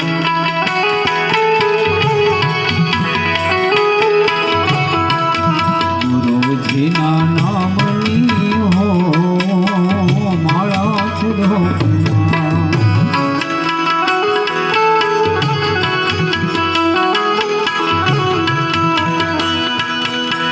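Devotional dhun music: harmonium playing a melody in held notes over a steady tabla rhythm, with a wavering melodic line in the middle.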